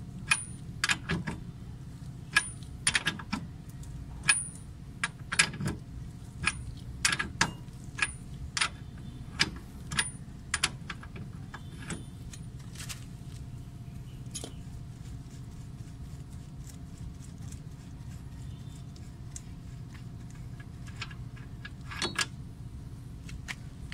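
Socket ratchet clicking as a 30 mm socket unscrews a car's rear hub nut. The clicks come in quick strokes about every half second at first, then thin out to a few scattered clicks after about ten seconds.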